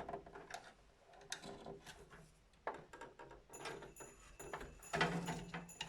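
Small plastic-and-metal clicks and scrapes as a piece of plastic pushes the retention lock of a motherboard's PCI Express slot shut on a graphics card. There is a louder cluster of clicks about five seconds in.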